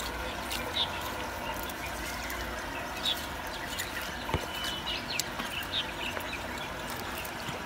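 Steady outdoor background hiss with scattered light ticks and a few faint, brief high chirps.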